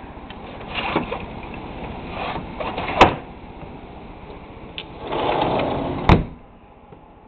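Blizzard wind gusting hard through an open doorway, about 50 mph, surging in uneven swells with the loudest gust just before the end. Two sharp knocks, about three seconds in and near the end; after the second the wind noise falls away, as when the door is shut.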